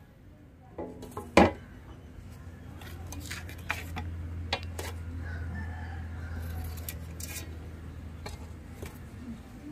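Whole fish being set down on a large metal plate: a sharp knock about a second and a half in, then a run of lighter knocks and clatter against the plate. A low steady hum runs underneath through the middle.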